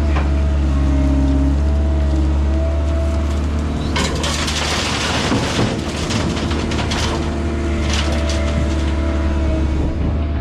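Diesel engine of a loading machine running steadily under load, with a burst of broken concrete and debris crunching and clattering in the bucket and onto a steel truck bed from about four seconds in to past the middle, and a few more clatters after.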